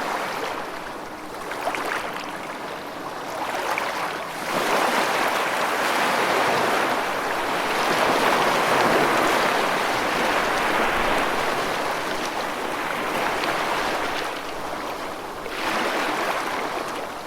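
Ocean waves washing onto a shore, a continuous rush of surf that swells a few seconds in, eases off, then swells again near the end.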